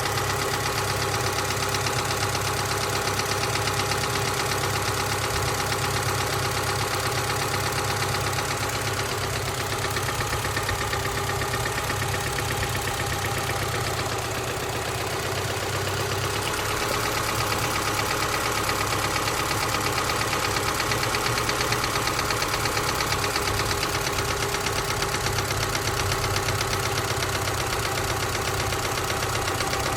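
Subaru EJ253 2.5-litre flat-four engine running steadily with a fast, regular knocking from the middle of the engine, which the owner takes for possible rod knock.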